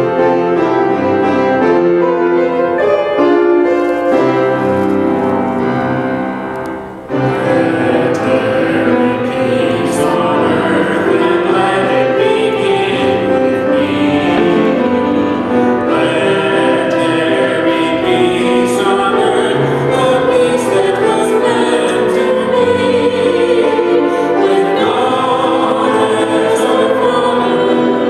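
Church hymn on piano: an instrumental opening, then voices come in singing with piano accompaniment about seven seconds in.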